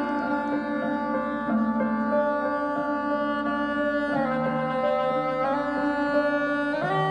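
Soprano saxophone playing a slow melody of long held notes, over sustained lower accompanying notes; the harmony shifts about a second and a half in, again near the middle, and just before the end.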